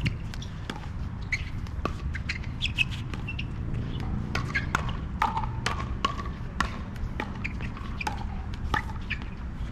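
Pickleball paddles striking a plastic pickleball in a long rally of sharp, irregular pocks, several close together at times.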